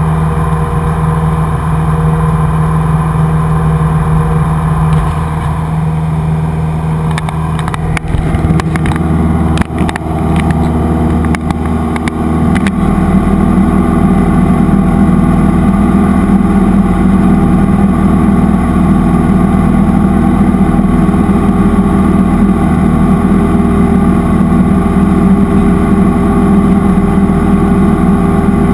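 Single-engine Cessna's piston engine and propeller droning steadily, heard inside the cabin in flight. A few sharp clicks come between about 8 and 12 seconds in, after which the drone is louder and stays steady.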